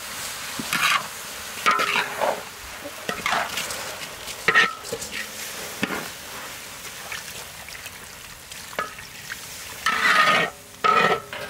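A metal spatula scraping and scooping around a large wok as rice and carrot strips are stirred and turned, over a steady frying sizzle. The strokes come about once a second, ease off in the middle and grow loud again near the end.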